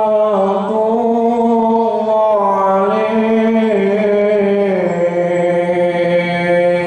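A solo male voice singing sholawat (Islamic devotional song) without accompaniment: long held notes that bend slowly up and down in ornamented runs.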